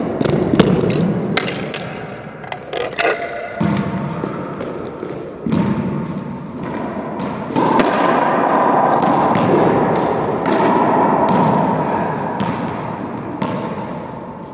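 Racquetball play: a series of sharp smacks as the hollow rubber ball strikes racquet strings, court walls and floor, each hit echoing briefly in the enclosed court. The hits come thick and fast at first, then more sparsely. A louder steady rushing, rustling noise runs for several seconds in the second half.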